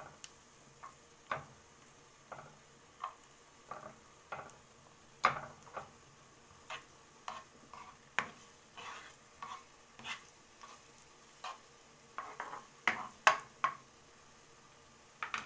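Spatula stirring chopped garlic in hot oil in a nonstick frying pan, with irregular taps and scrapes against the pan about once a second over a faint sizzle. The garlic is at the start of its sauté.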